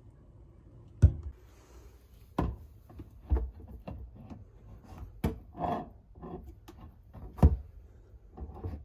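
Plastic lotion bottles set down and shuffled on a wooden cabinet shelf: a run of knocks and light clatters. The sharpest come about a second in and near the end, with a short rub of a bottle sliding on the wood in the middle.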